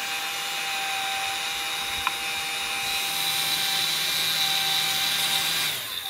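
Small electric cooling fan on an amplifier heat sink running steadily: a whir with a thin high whine, and a single click about two seconds in.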